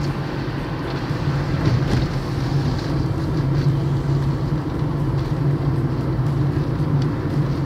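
Fiat Grand Siena car cruising at road speed, heard from inside the cabin: a steady engine hum over a continuous rush of tyre and road noise.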